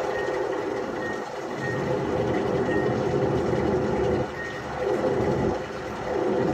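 LG washing machine running, a steady mechanical hum and rush that swells and eases every second or so, with faint short high beeps now and then.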